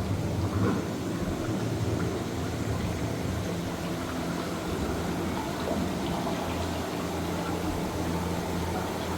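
Water bubbling and sloshing over a steady low hum, the ambient sound of a ride boat moving along its water channel.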